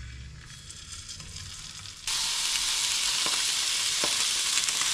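Raw bonito fillets frying in a little oil in a pan, sizzling. The sizzle is faint at first, then jumps to a loud, even sizzle about two seconds in, with a few small pops.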